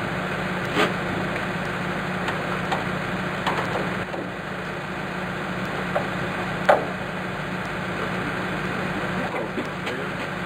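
An engine running steadily, with a few sharp knocks, the loudest about a second in and again about two-thirds of the way through.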